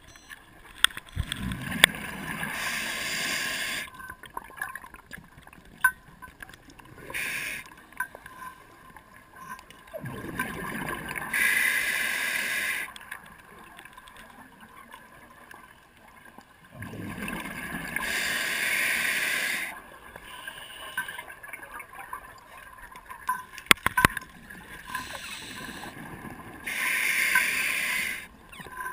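A diver breathing through a scuba regulator, the exhaled bubbles rushing and gurgling in long bursts of two to three seconds. The four big breaths come about seven to ten seconds apart. A few sharp clicks are heard, the loudest about three-quarters of the way through.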